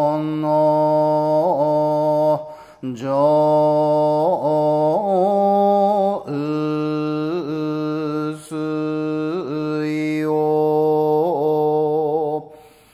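Solo male voice chanting Shingon shōmyō (Buzan school hyōbyaku) in long, slow held vowels, the pitch wavering in ornamental yuri on the sustained notes, with short pauses for breath between phrases.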